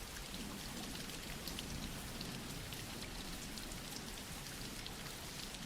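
Soft steady rain falling, with faint scattered drop ticks.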